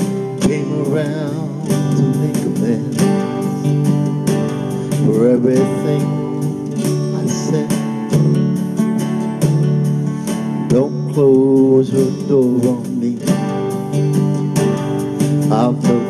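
Country song: strummed acoustic guitar with a voice singing over it.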